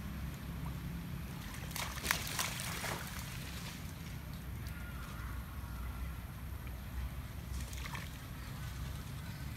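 Long-tailed macaques swimming in a shallow muddy pond, splashing and sloshing the water. There is a cluster of splashes about two seconds in and another brief one near the end, over a steady low background rumble.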